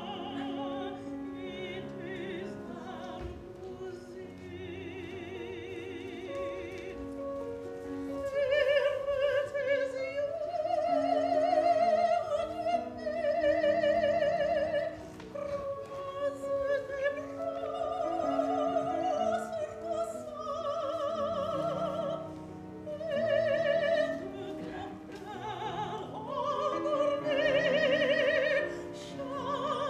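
Operatic singing in long held notes with wide vibrato over a steady instrumental accompaniment. The voice grows louder about eight seconds in.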